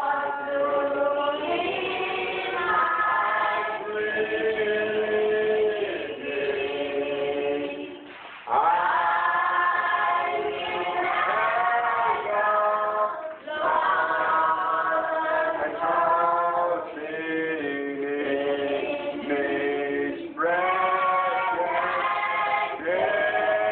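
Group of voices singing together without instruments, in held phrases broken by short pauses.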